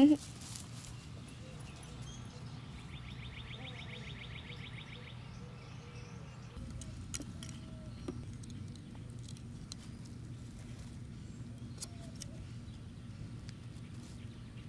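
Outdoor yard ambience: a steady low hum with faint bird chirps, and a rapid buzzing trill for about two seconds starting about three seconds in. A few soft clicks and rustles come as a kitten brushes against the camera.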